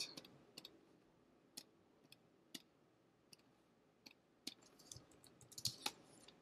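Computer mouse clicks at a desk: sharp single clicks every half second to a second, with a quicker cluster of clicks near the end, over faint room hiss.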